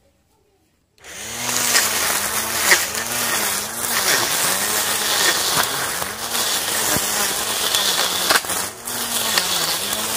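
Lapusen mini cordless battery grass trimmer running and cutting grass: a motor whine that dips in pitch and recovers over and over as the cutting head bites into the grass, with a few sharp ticks. It starts abruptly about a second in.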